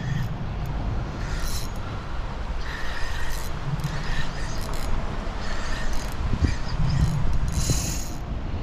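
Spinning reel being cranked to retrieve a lure, a mechanical whir that comes in short spells over a steady low rumble.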